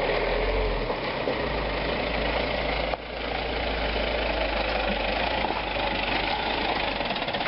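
Suzuki Grand Vitara SUV's engine running as it crawls up a muddy dirt track, a steady rumble with a dense noisy layer over it. The sound breaks briefly and picks up again about three seconds in.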